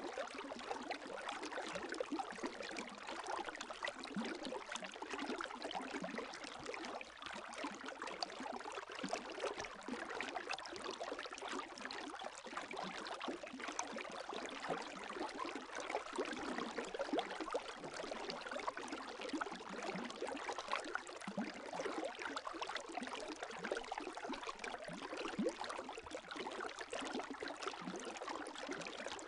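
Gentle lake waves lapping: a steady wash of many small splashes and trickles, even throughout with no single big wave.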